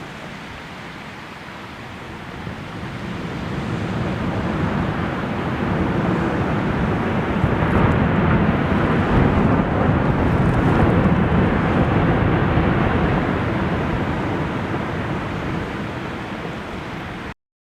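A large slide of snow or debris coming down a mountainside: a deep rushing rumble that swells over several seconds, eases off, and then cuts off abruptly near the end.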